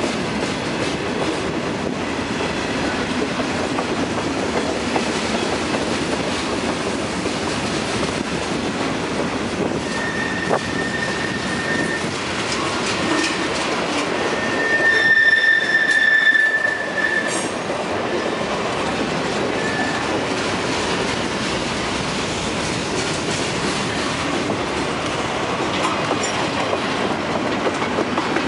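Freight train cars rolling past with a steady clatter of steel wheels on the rails. A high wheel squeal comes in about ten seconds in, and a louder, longer squeal comes around the middle.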